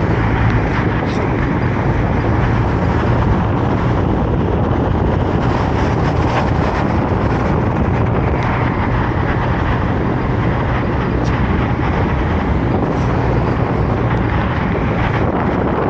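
Steady road noise from a moving vehicle in traffic: engine, tyres and wind running evenly, with a constant low hum.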